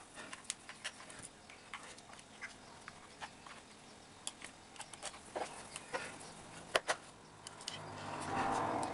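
Small, irregular plastic clicks and taps of headphone earcup parts and tiny screws being handled and fitted together, with one louder click about seven seconds in and a brief rustle near the end.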